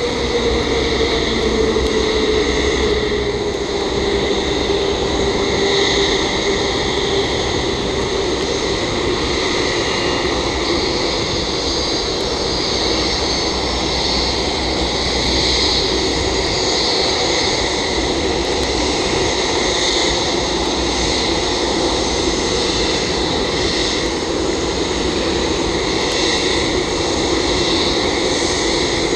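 Boeing 787-8 Dreamliner's Rolls-Royce Trent 1000 jet engines running at taxi power as the airliner taxis close by. A steady engine whine slowly falls in pitch over a constant jet rush.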